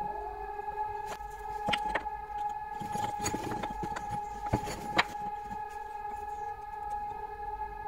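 Civil defence warning siren sounding for a test, holding a steady tone with overtones in the background. Over it come several sharp taps and knocks of wooden handle blanks and a screwdriver blade being handled on a workbench, the loudest two about four and a half and five seconds in.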